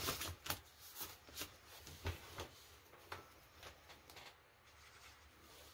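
Paper bills and a plastic binder pocket being handled, making quiet rustles and a few scattered short crinkles and clicks.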